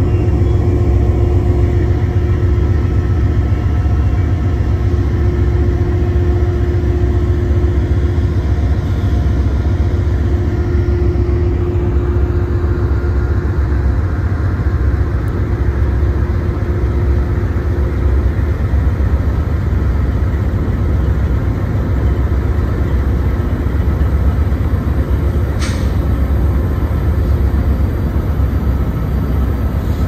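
Several Union Pacific diesel-electric locomotives standing with their engines running: a deep, steady rumble, with a faint steady whine through about the first eighteen seconds and a short click about 26 seconds in.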